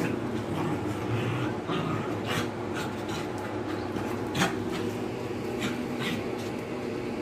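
Two dogs play-fighting, with short growls and snarls and scuffling scattered through, the sharpest about four and a half seconds in. A steady low hum runs underneath.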